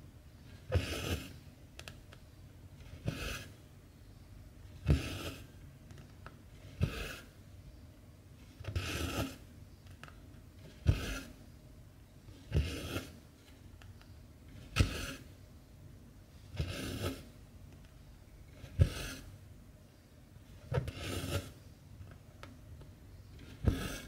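Hand cross-stitching: a needle taps through 14-count cotton cross-stitch fabric, then the cotton thread is pulled through with a short rasping swish. The pattern repeats steadily, about one stitch every two seconds.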